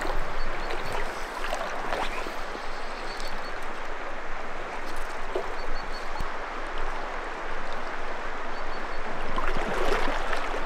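Steady rush of a river flowing.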